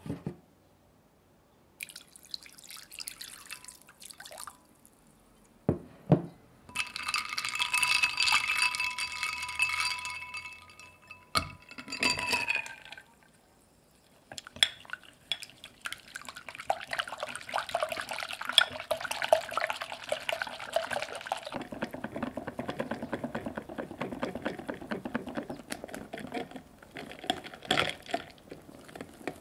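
Ice cubes clinking in a glass bowl and water poured over them, ringing against the glass. Then heavy cream is whisked by hand with a balloon whisk in a glass bowl set over the ice water: a fast, steady ticking of the wires against the glass that turns lower in pitch about two-thirds of the way through.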